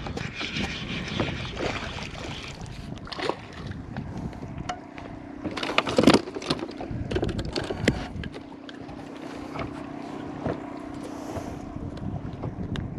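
Knocks, clicks and rustling of gear being handled on a fishing boat, over wind on the microphone, with a loud clatter about six seconds in. A steady low hum comes in about five seconds in and carries on.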